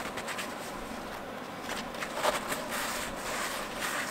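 Blue paper shop towel rubbing and wiping inside a bore of a Caterpillar 1693 engine block, cleaning gunk out of the oil groove, in irregular strokes with one louder scrape about two seconds in.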